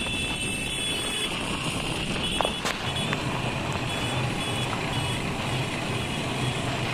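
Motorbike riding through city traffic: steady engine and road noise mixed with wind on the microphone. Short high-pitched beeps come and go.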